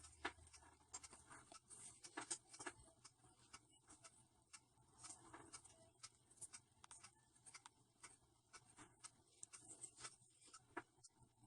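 Faint, irregular small clicks and taps of nail tools and gel products being handled, several a second at uneven spacing.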